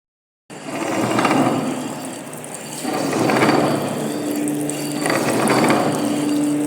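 Lathe rigged for milling, its face and side cutter cutting metal: a steady machining noise that swells about every two seconds, with a steady hum joining about four seconds in.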